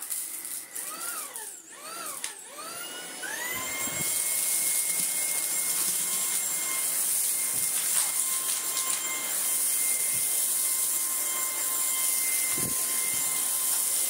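Tineco A10 Hero cordless stick vacuum running on max power while vacuuming sawdust off a rug. Its motor whine swoops up and down several times at first, then climbs and settles into a steady high whine about four seconds in, over a rush of air.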